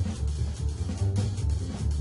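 Background music with a bass and drum beat.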